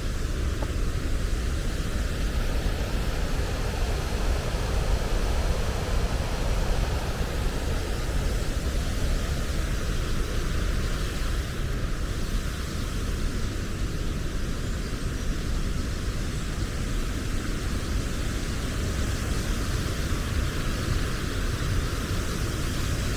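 Rushing whitewater in a rocky canyon: a steady, even hiss with a deep low rumble beneath it.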